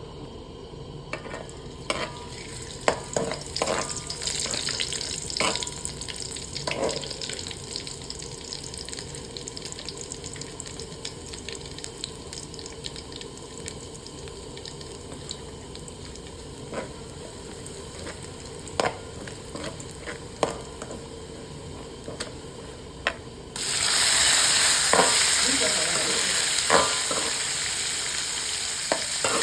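Fried noodles sizzling in a hot pan, with scattered clicks and scrapes of a utensil stirring them. About 23 seconds in, the sizzle suddenly grows much louder and stays loud.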